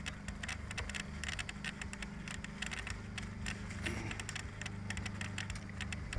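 Close handling noise from the sailplane's fuselage, where the camera is mounted: irregular rubbing and light tapping as hands work on the airframe, over a steady low hum.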